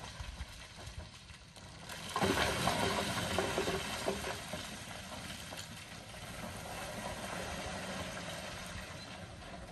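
Steam locomotive being coaled by a grab crane: a burst of rattling, hissing noise starts about two seconds in and eases after a couple of seconds to a steady mechanical noise.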